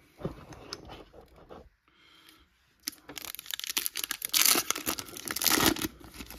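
A foil wrapper of a 2023 Topps Chrome trading-card pack being torn open by hand. There is light handling for the first few seconds, then crinkling and ripping of the foil from about three seconds in.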